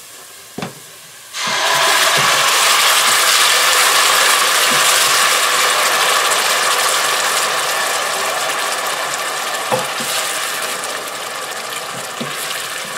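Blended chili pepper hitting hot oil and fried onions in a stainless pot: a sudden loud sizzle starts just over a second in and slowly dies down as the purée fries.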